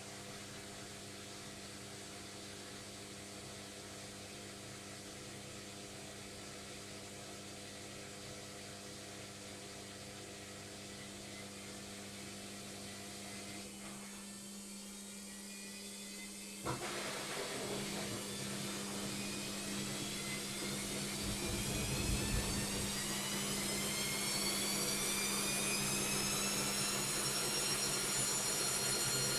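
Logik washing machine running with a steady hum, then a click about two-thirds of the way in, after which the motor's whine rises steadily in pitch and grows louder as the drum speeds up into its spin.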